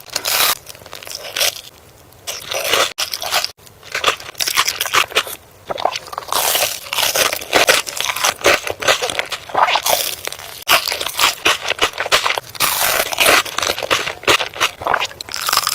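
Close-miked eating of crunchy food: rapid crisp crunches and crackles as it is bitten and chewed, with a couple of short pauses in the first few seconds.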